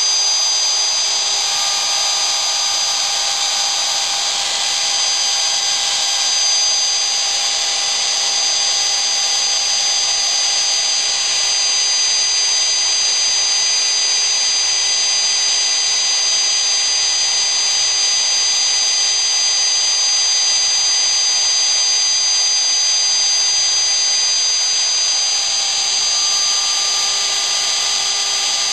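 A 1-3/4 HP router running steadily at high speed as the spindle of a home-built CNC router, giving a constant high whine. Fainter tones come and go from about two seconds in and again near the end.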